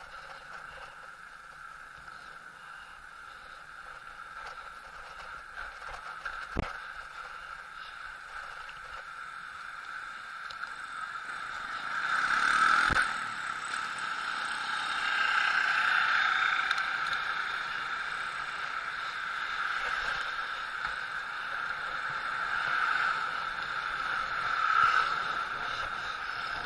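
Riding a bicycle along a street with motor traffic: a steady whir of wheels and road, with passing motorbikes and cars swelling up several times, loudest about halfway through. Two short low knocks, about a quarter and halfway through.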